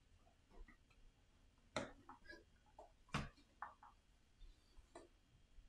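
Sparse light clicks and taps of cardboard game-token sheets being handled and set down, the two sharpest about two and three seconds in, over near silence.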